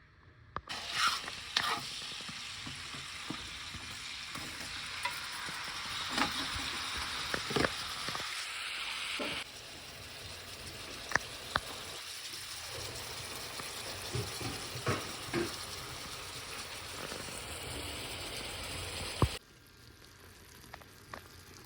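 Food sizzling in a hot pan, a steady hiss with scattered sharp clicks and taps of a utensil; the sizzle cuts off suddenly near the end.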